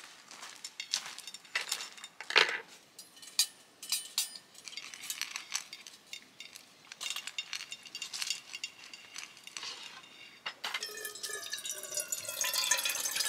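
Dishes or cookware clinking and clicking as they are handled, then, from a little over two-thirds of the way in, liquid pouring steadily into a container.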